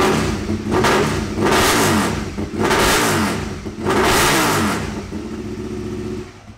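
Aprilia RSV Mille's 998 cc V-twin running loud on its first start after a rebuild, revved up and down in several blips. It then settles to a steadier idle and shuts off near the end.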